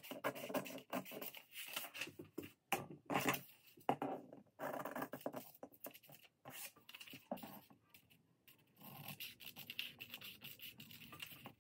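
Scissors cutting paper in a run of short, crisp snips, with the paper rustling as it is turned, and a brief pause about two-thirds of the way through.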